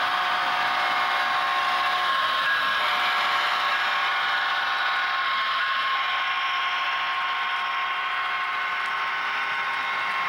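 HO scale model train, a Union Pacific diesel locomotive hauling covered hoppers, running past: a steady mechanical hum made of a few held tones, thin and high with little bass.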